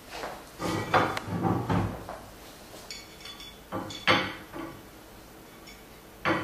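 Metal parts of a CNC router table knocking and clattering as a side plate is handled and fitted against the aluminium rail carriage: a busy patch of handling noise early on, sharp knocks about four seconds in (the loudest), and one more near the end.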